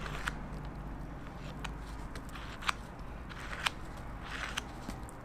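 Metal palette knife spreading and scraping bean-paste frosting over a rice cake: soft smearing with a few sharp clicks of the blade.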